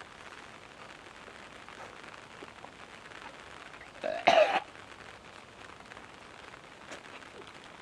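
A young man coughing hard once, about four seconds in, in a short double burst, his throat caught by a mouthful of dry flour. Otherwise only a faint steady background hiss.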